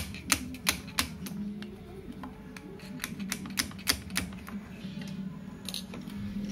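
Sharp, irregular metal clicks and taps, about three a second for the first four seconds and then sparser, as the piston of a Yamaha Mio Soul GT scooter engine is worked off its connecting rod with hand tools. A brief scrape comes near the end, over a steady low hum.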